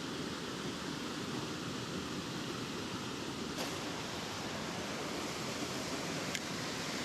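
Steady rushing of a river's current, an even hiss of flowing water, whose tone shifts slightly about halfway through.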